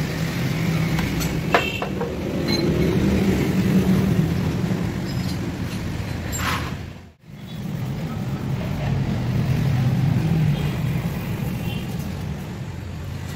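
Steady low rumble of vehicle engines running nearby, swelling and easing slowly, with a few sharp clicks of the plastic headlight being handled. The sound drops out for a moment about seven seconds in.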